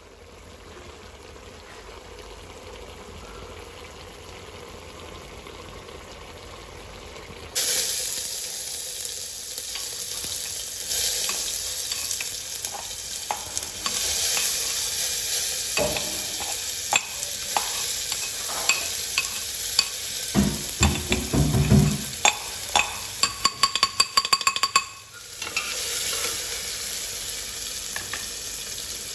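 Hot oil sizzling in an aluminium pressure cooker for a dal tadka, starting suddenly and loudly about a quarter of the way in as garlic, ginger and tomato go in. Later comes a run of sharp knocks and scrapes, some briefly ringing, as a pestle scrapes and taps the paste out of a metal mortar into the pot.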